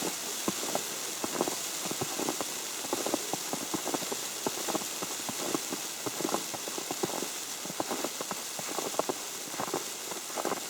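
Snow falling on an umbrella: many irregular light ticks over a steady hiss.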